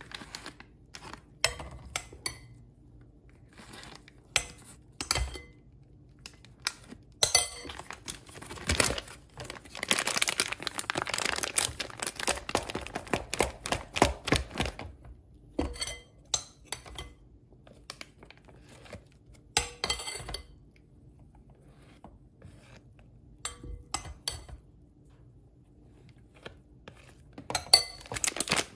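Metal spoon clinking and scraping against a glass bowl as whipped cream is scooped into a clear plastic bag, with scattered sharp clicks. About eight to fifteen seconds in, the plastic bag crinkles and rustles continuously as it is handled.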